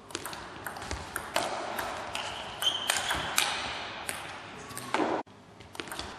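Celluloid table tennis ball clicking off rubber bats and the table: sharp, irregular ticks several times a second.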